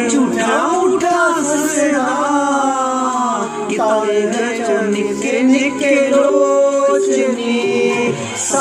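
A man singing into a handheld microphone, long wavering, sliding notes, over a backing music track.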